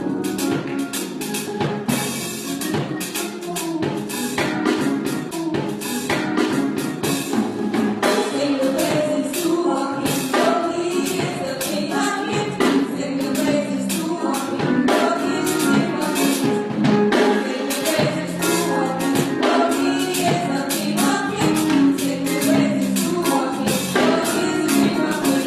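Upbeat gospel worship music: a tambourine shaken in a steady beat over drums, with singing voices.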